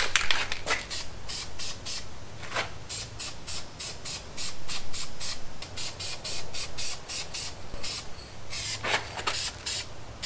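Aerosol spray paint can (rattle can) hissing in quick short bursts, about three a second.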